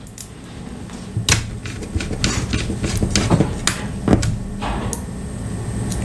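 Scattered clicks and light knocks of small laptop parts, such as a screw, being picked up and handled on a tabletop, over a steady low hum.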